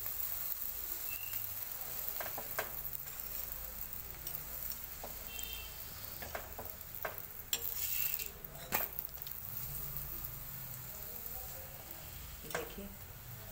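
Rice-flour roti sizzling in oil on a hot tawa, a steady frying hiss. A metal spatula scrapes and taps against the pan now and then, loudest a little under nine seconds in.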